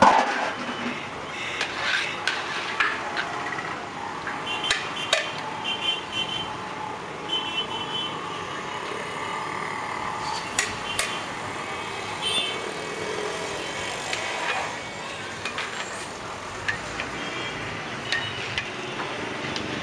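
Long slotted metal ladle knocking and scraping against a large aluminium cooking pot as a big batch of biryani rice is stirred, with a loud knock right at the start and scattered clinks after, over a steady rushing noise.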